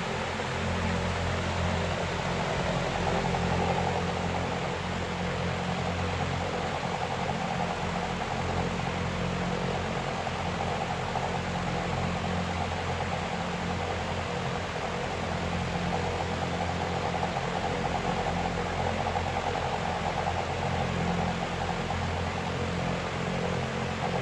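Electric fan running: a steady whirring rush of air over a low motor hum.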